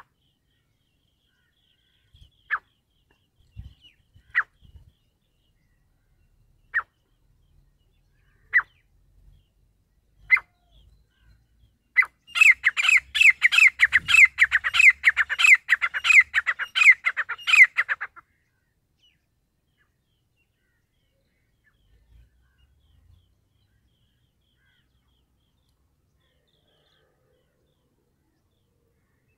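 Francolin (teetar) calling: single sharp notes about every two seconds, then a fast run of repeated falling notes, several a second, that lasts about six seconds and stops.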